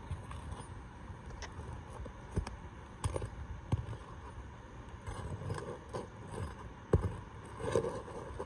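Hand roofing tools working on asphalt shingles: irregular knocks and short scrapes as shingles are pried up and their nails worked loose, with one sharp knock about seven seconds in.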